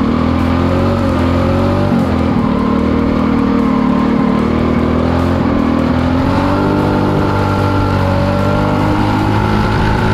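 Drift kart's 225cc engine running hard, heard from on board the kart, the revs dipping and then rising to a higher steady pitch in the second half.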